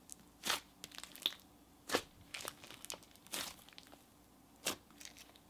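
Hands squeezing and poking a thick, clay-like butter slime with small foam pieces in it, giving a handful of irregular sticky squishes and small pops.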